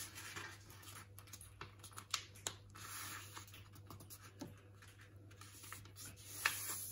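A sheet of A4 paper being folded by hand on a tabletop: light rustling, with scattered soft taps and scrapes as fingers press and run along the crease, the sharpest about six and a half seconds in.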